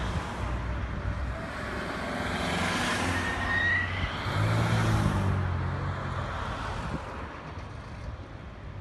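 Cars passing close by on a highway, tyre and engine noise swelling to its loudest about three to five seconds in and dying down after about seven seconds.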